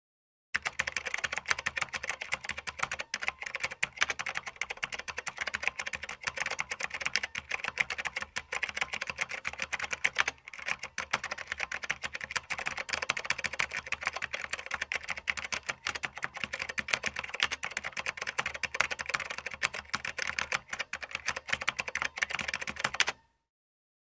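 Fast, continuous typing on a computer keyboard: a dense stream of key clicks with a brief pause about ten seconds in. It starts about half a second in and stops abruptly near the end.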